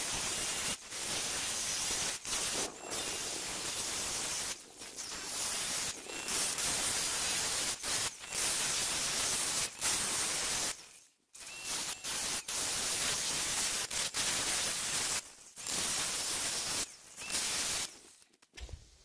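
Angle grinder with a cutoff wheel cutting into the steel wall of a 100 lb propane tank, in runs of a few seconds with short pauses between them, as the outline of a door is cut.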